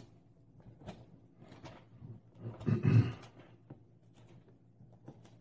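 Bible pages being leafed through by hand, a few soft paper rustles and taps. About halfway through there is one brief, louder low sound like a voice.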